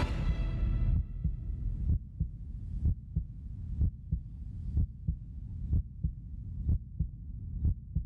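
Heartbeat sound effect from a suspense soundtrack: a low thump about once a second over a steady low drone, with the music fading out in the first second.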